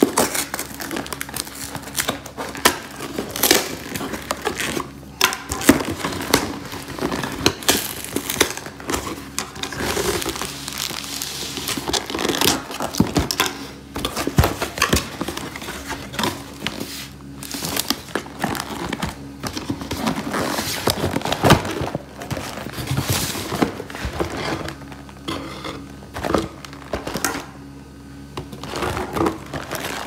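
Hands tearing open a cardboard carton and lifting out the paperboard boxes inside, with dense, irregular crinkling, tearing and tapping of cardboard.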